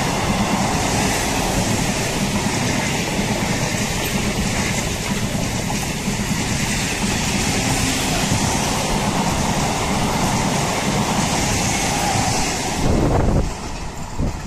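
Indian Railways MEMU electric multiple unit coaches rolling past close by at speed: a loud, steady rush of wheels on rail. It cuts off suddenly about a second before the end, leaving a much quieter rumble.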